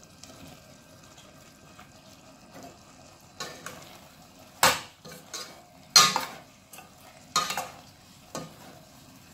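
A metal spoon stirring potato cubes and shrimp in a stainless steel pot, scraping and clinking against the pot in about six strokes from about three seconds in, over a faint sizzle of frying.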